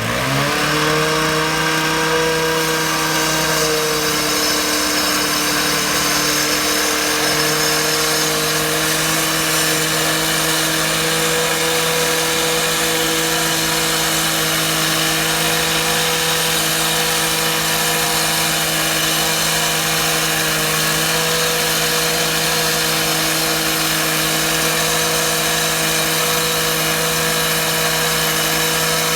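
Power saw with a diamond blade, which the material presents as cutting concrete. It spins up within the first half second, then runs at a steady pitch with a constant hiss.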